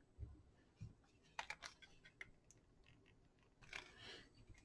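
Near silence with a few faint, scattered clicks and taps as a circuit board is handled.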